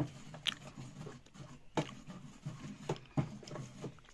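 A ladle stirring rice in a metal cooking pot, knocking and scraping against its sides with a few sharp, irregular clicks.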